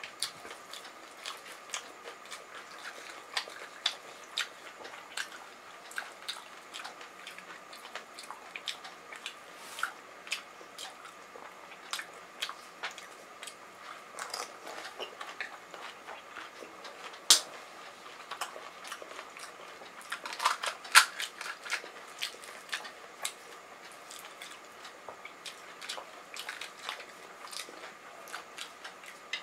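Pani puri being eaten: crisp fried puri shells cracking as they are broken open and bitten, and crunchy chewing. Sharp crackles are scattered throughout, the loudest about 17 and 21 seconds in.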